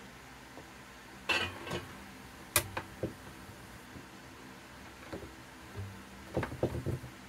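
Scattered light knocks and clicks as rods used as improvised go-bars are set and pressed down onto a wooden block and spruce braces in a guitar-top glue-up. A clatter comes about a second in, a sharp click near the middle, and a quick cluster of knocks near the end.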